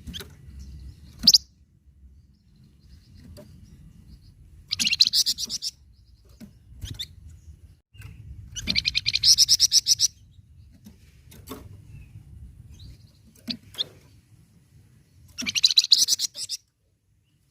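Flamboyan songbird singing: three bursts of rapid, high trilled notes, each about a second long, with a brief sharp call about a second in and short chirps in between, over a faint low rumble.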